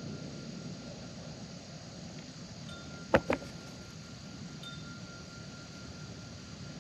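Faint, steady ringing chime tones, with two sharp clicks in quick succession about three seconds in.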